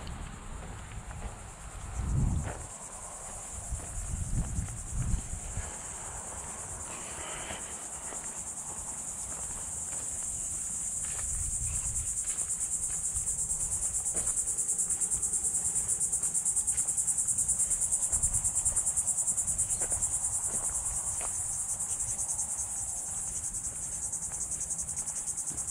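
A steady high-pitched chorus of insects, a fast pulsing buzz that grows louder from about a third of the way in and stays to the end. There are a few low thuds in the first several seconds.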